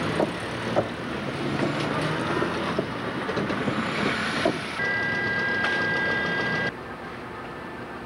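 Cars driving across a railway level crossing, with traffic noise and a few sharp knocks of tyres striking the rails. About five seconds in, a steady high two-note electronic tone sounds for about two seconds and stops abruptly, after which it is quieter.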